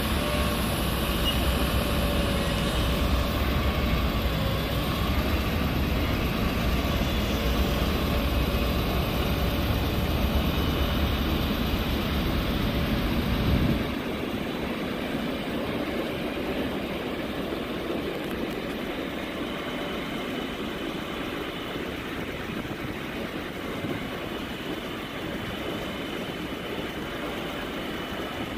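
GMC C5500's 6.6L Duramax diesel running steadily while the Altec bucket-truck boom is worked, with a steady whine over the engine. The deep rumble cuts off suddenly about halfway through and the sound gets quieter.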